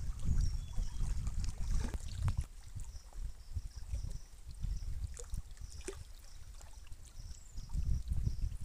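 Gusty wind rumbling on the microphone, rising and falling, with faint water lapping against the rocks and a few small clicks.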